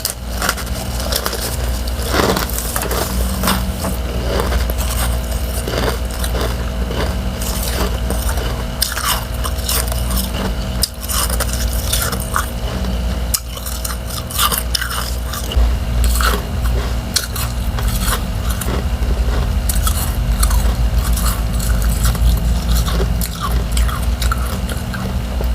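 Close-up crunching and chewing of freezer frost: thin ice shell and powdery frost breaking between the teeth in many short, irregular crunches, over a steady low hum.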